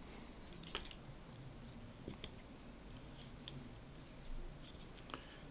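Scattered light clicks and taps of a small homemade wooden-stick contraption being handled and moved on a cloth-covered table, about five sharp ticks over several seconds.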